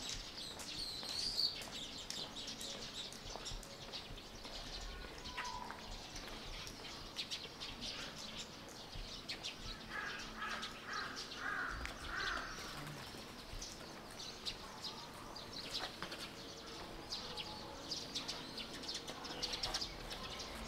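Small birds chirping, with many short high chirps scattered throughout over a steady background hush.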